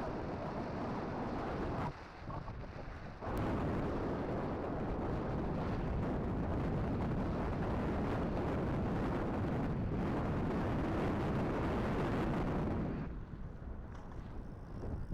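Wind rushing over the microphone during a road bike ride, a dense low rumble that eases off briefly about two seconds in and again near the end.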